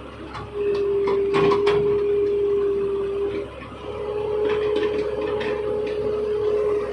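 Hydraulic excavator (L&T-Komatsu) working its boom and bucket: engine and hydraulics under load with a steady high whine that cuts in about half a second in, dips out briefly around three and a half seconds and comes back. A few sharp knocks about one and a half seconds in.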